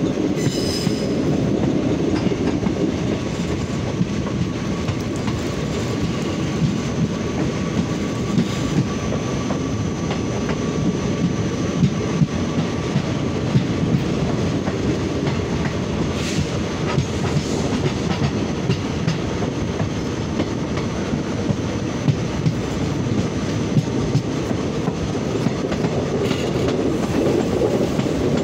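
Passenger train running at speed, heard from an open coach door: a steady rumble of steel wheels on rail, with scattered sharp clacks as the wheels cross rail joints.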